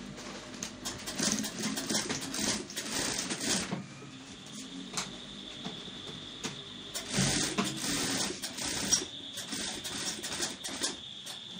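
Industrial single-needle sewing machine stitching a seam in two long runs, one starting about half a second in and the other about seven seconds in. A thin, steady high whine runs on from about four seconds in.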